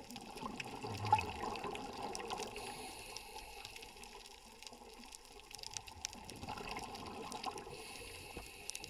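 Underwater ambience heard through an action camera's waterproof housing: a steady muffled water rush full of scattered small clicks and crackles, with one short low thump about a second in.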